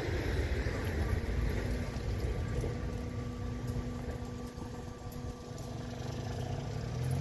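Level crossing barriers rising, their drive motors giving a steady electric hum that comes in about a second in, with a second, higher hum joining a little later. Under it, a low rumble fades away over the first few seconds.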